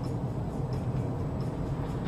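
Steady low rumble of a car's engine and tyres heard from inside the cabin while driving on a wet road, with faint regular ticks about every two-thirds of a second.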